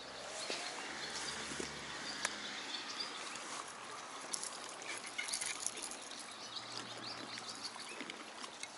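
Quiet outdoor ambience at a lakeside: scattered faint bird chirps over a low hiss, with a few small clicks and rustles.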